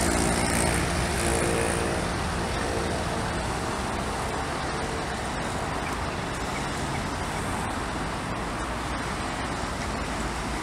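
Class 37 diesel locomotive's English Electric V12 engine working under power as it moves away. Its droning note fades over the first few seconds into a steady distant rumble.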